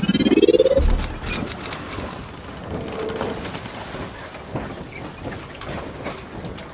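Logo intro sound effect: a rising whoosh that ends in a deep boom about a second in, followed by a hissing, crackling texture with a brief high shimmer.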